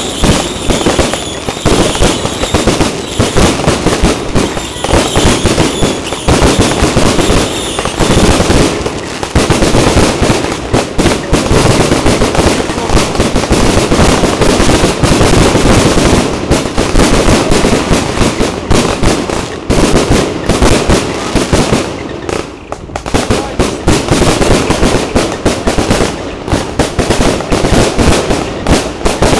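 Fireworks display: a dense, near-continuous barrage of bangs and crackling from aerial shells bursting overhead, easing briefly about twenty-two seconds in before picking up again.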